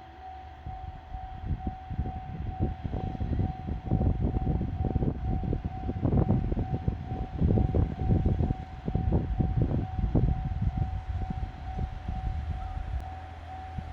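Level crossing warning bell ringing in a steady repeating tone while a diesel train runs past over the crossing, its engine rumble and wheel clatter building about a second in, loudest in the middle, and easing near the end.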